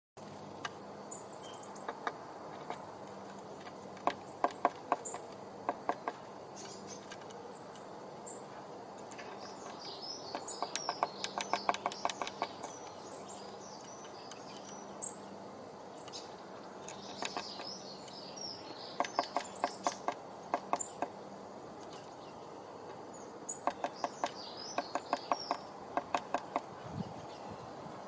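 Small songbirds calling: high chirps and bouts of quick, sharp ticking, four bouts of a few seconds each.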